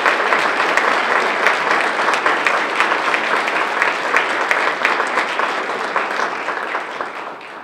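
Audience applauding steadily in a hall, a dense patter of many hands clapping that dies away near the end.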